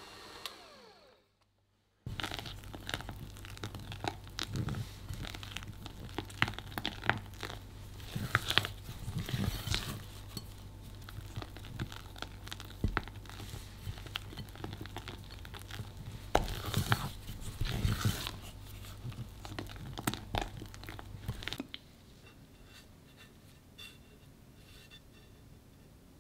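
An electric hand mixer winds down at the start. Then a silicone spatula stirs, folds and scrapes thick buttercream around a glass bowl, with soft squelches and irregular clicks and taps against the glass.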